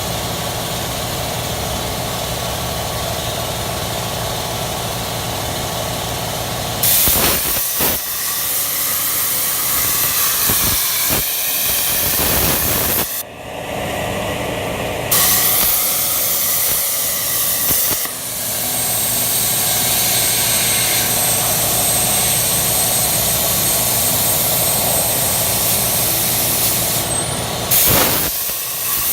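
CNC machine cutting slots in a metal tube: a steady machine hum under a loud hiss that starts and stops several times as the cuts are made.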